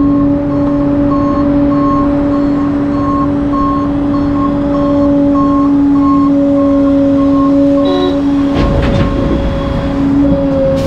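Heavy construction equipment running with a steady whine, while a backup alarm beeps about twice a second and stops about eight seconds in. A brief, louder noise follows just after the beeping ends.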